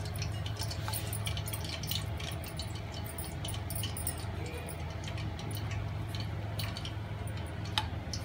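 Small scattered clicks and clinks of fried chicken pieces being handled and arranged on a plate, over a steady low hum, with one sharper click near the end.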